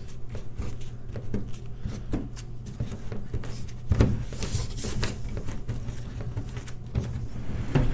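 Gloved hand wiping and brushing plastic shavings off the inside wall of a plastic IBC tote around a freshly cut hole: scattered rubbing, scraping and light tapping, with one louder knock about four seconds in, over a steady low hum.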